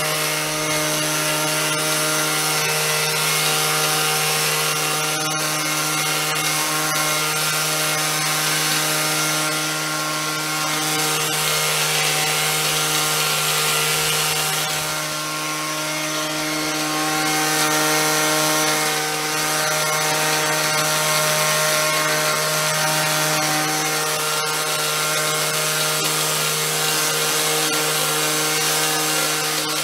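Leaf blower running at a steady speed, its motor humming over a loud rush of air as it blows debris off a garden border. It is switched off at the very end and begins to wind down.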